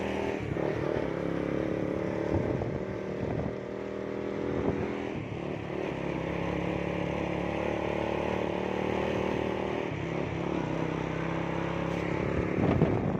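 Motorcycle engine running as it rides along a road, its pitch shifting a few times with the throttle, with a few short knocks from bumps along the way.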